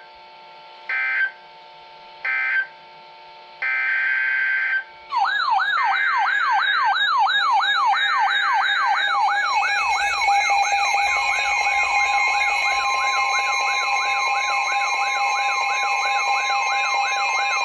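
Emergency Alert System broadcast tones: short bursts of buzzing digital header data, then from about five seconds a rapid, repeating siren-like wail, with a steady two-note alert tone joining partway through, signalling a new severe-weather warning.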